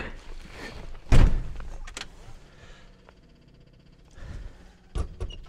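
A heavy thump about a second in, followed by a few lighter clicks and knocks inside the cabin of a 1956 Buick that does not start.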